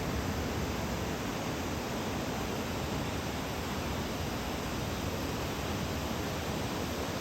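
Steady roar of ocean surf breaking on the beach under a typhoon swell. It is an unbroken wash of noise, strongest in the low end, with no single wave standing out.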